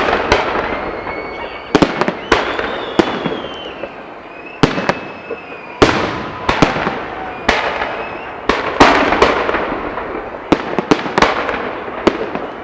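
Aerial fireworks display: a dozen or more loud shell bursts going off in quick, irregular succession, each bang trailing off in a rumbling echo, with thin whistling tones between some of them.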